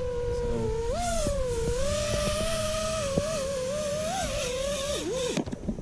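FPV quadcopter's EMAX Eco II 2306 brushless motors and props whining in flight, the pitch rising and falling with the throttle. The whine dips and cuts off about five seconds in, followed by a few sharp clicks.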